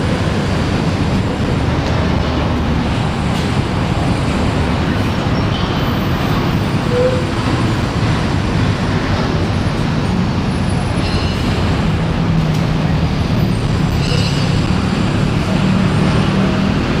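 Singapore MRT train running: a steady, loud rumble of wheels on rail, with faint high wheel squeals now and then.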